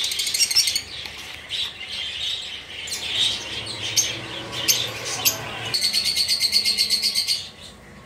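Caged parrots chirping and chattering, with scattered high calls and then a fast run of rapid, repeated chattering calls from about six seconds in; the chatter drops away near the end.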